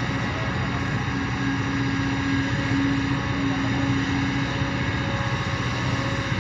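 Kobelco crawler excavator's diesel engine running under load as the bucket digs into soil, with a whine that comes and goes over the steady engine note.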